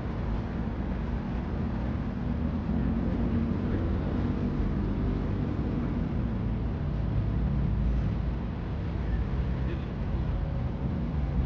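Steady low rumble of city street traffic, even throughout with no distinct events.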